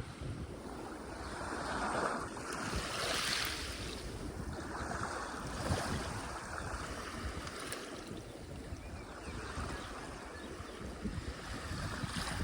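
Sea waves breaking and washing up a beach, swelling several times, with wind rumbling on the microphone.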